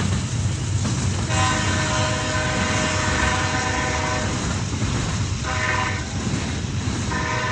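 Freight train cars rolling past with a steady low rumble, while a locomotive horn sounds from a train out of sight: a long blast starting about a second in, a short blast about two-thirds through, and another long blast starting near the end.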